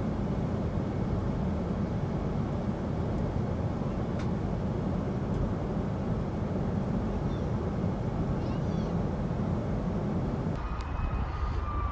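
Steady drone of a Boeing 737 airliner cabin in flight: engine and airflow noise, heaviest in the low end. About ten and a half seconds in, it cuts to quieter outdoor sound with faint high wavering tones.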